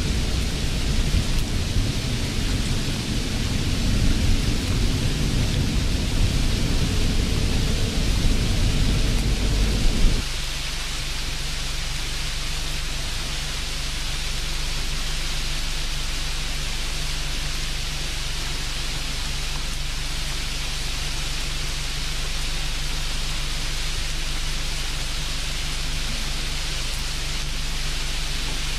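Steady hiss with a faint low hum underneath. A deeper rumble that is there at first stops abruptly about ten seconds in.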